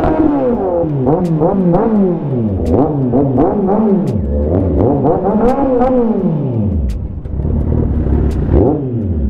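Motorcycle engines being revved again and again, the pitch climbing and falling in repeated sweeps that sometimes overlap, with short sharp cracks scattered through.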